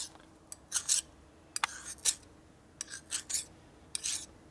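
Fine hand file rasping on the steel shaft of a Harley Shovelhead four-speed transmission in short, separate strokes with pauses between them, dressing burrs off the shaft.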